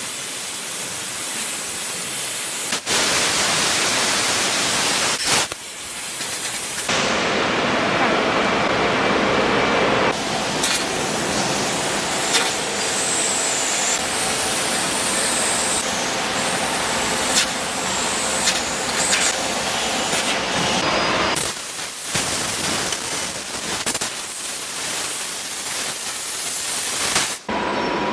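A high-power fiber laser cutting head cutting sheet metal, with a steady loud hiss from the assist-gas jet blowing through the cut. The hiss changes or drops out abruptly several times.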